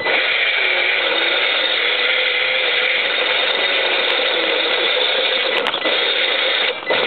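RC rock crawler's Novak 45 electric motor and homemade aluminium gearbox whining steadily under throttle, the pitch wavering as the load changes. It starts suddenly and drops out briefly near the end.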